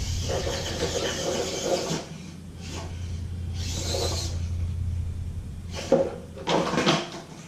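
Small 1/24-scale RC crawler's electric motor and gearbox whirring in repeated bursts, with scraping and rubbing, as the truck works at a steep climb.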